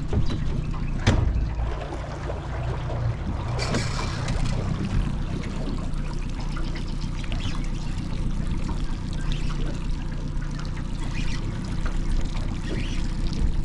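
Water splashing and trickling around a hooked barramundi being played at the surface, over a steady low hum.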